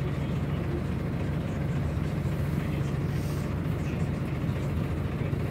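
Steady low rumble of a GAZelle minibus's engine and road noise, heard from inside the passenger cabin while it drives.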